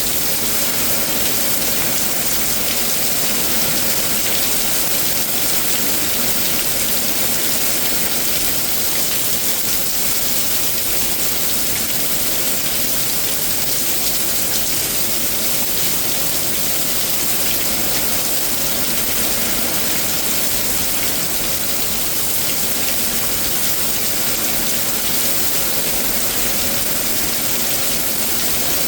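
Heavy rain pouring steadily during a severe thunderstorm, a constant hiss with no let-up.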